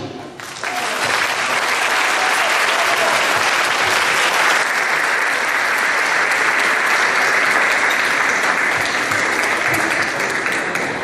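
Theatre audience applauding. The applause swells in just after the percussion music stops, about half a second in, and then holds steady.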